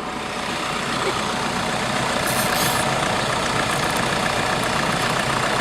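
A vehicle engine idling steadily, with a brief high zipping rasp about two seconds in, like a cable tie being pulled tight, and a few faint ticks after it.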